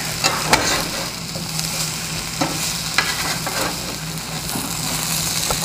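Diced potatoes, carrots and onions sizzling in a frying pan as they are turned over, with a handful of sharp scrapes and knocks of the utensil against the bottom of the pan.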